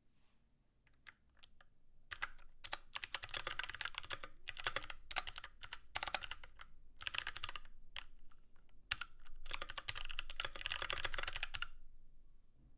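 Typing on a Keychron K6 mechanical keyboard with clicky Kailh Box White switches: a few single key clicks, then fast runs of typing with short pauses.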